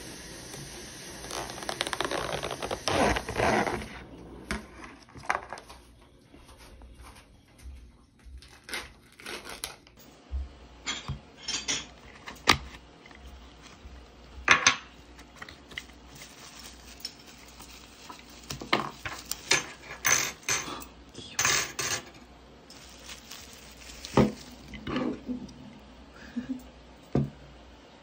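A plastic takeout-container lid is pried off with a crackling rustle for a few seconds. Then come scattered clicks, taps and light knocks as a paper box, plastic-wrapped packets and small plastic toys are handled and set down on a table.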